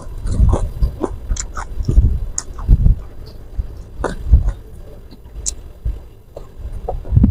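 Close-miked chewing of a mouthful of food, with irregular wet smacks and short clicks. A fresh handful is put into the mouth near the end.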